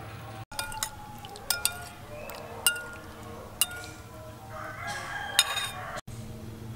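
Metal spoon clinking sharply against a ceramic bowl several times while stirring sauce, with a rooster crowing in the background.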